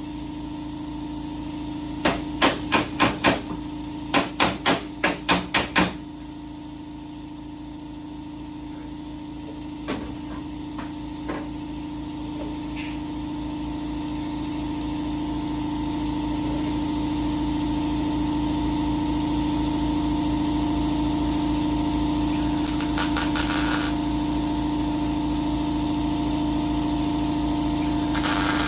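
Two quick runs of hammer blows on metal, about five and then about seven in rapid succession, over a steady machine hum that grows louder later on.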